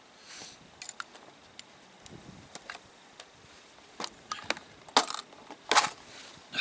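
Irregular clicks and knocks of hard objects being handled and set down, with a few louder clattering knocks about five and six seconds in.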